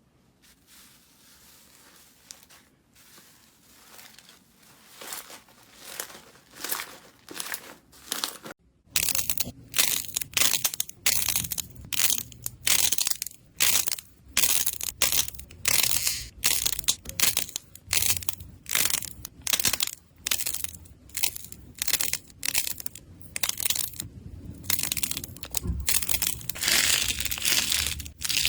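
Crunchy slime-type ASMR material being squeezed and crushed by hand. It starts with soft, quiet squishes, then from about nine seconds in comes a louder run of crunchy crushing strokes, one to two a second.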